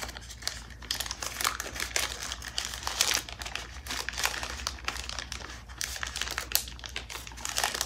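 Small plastic bag crinkling and rustling in irregular crackles as hands work at pulling an item out of it.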